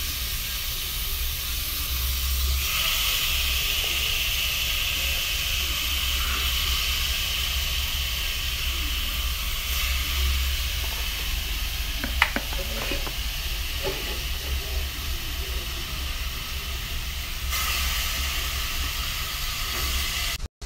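Pork pieces sizzling steadily in hot oil in a pan as they are browned, with a few short clicks about twelve seconds in.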